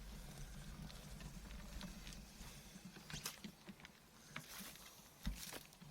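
Tandem bicycle tyres rolling over a rough dirt trail: a faint steady crunch with scattered small clicks and rattles, and one low thump about five seconds in.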